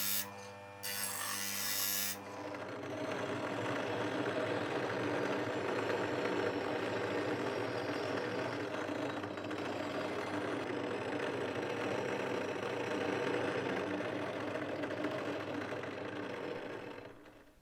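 A workshop power tool running steadily under load, then winding down and stopping shortly before the end. In the first two seconds, short hissing bursts sound over a low motor hum.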